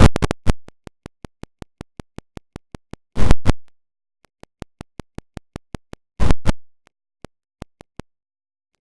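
Stutter-edited audio in a YTPMV remix: a fast, even train of short chopped clicks, about five a second, broken by two loud noisy bursts about three seconds apart, then thinning to a few scattered clicks near the end.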